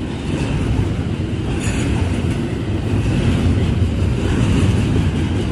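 Double-stack intermodal container cars rolling past on the rails: a steady, loud rumble of wheels and cars.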